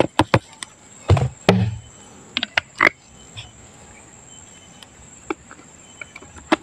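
Steady high-pitched chirring of crickets. Over it come a run of sharp clicks and knocks in the first three seconds as a plastic bottle is emptied into a tub of foaming liquid, then a few scattered clicks.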